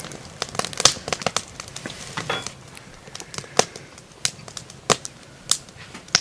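Irregular sharp clicks and crackles, a few each second, some louder than others.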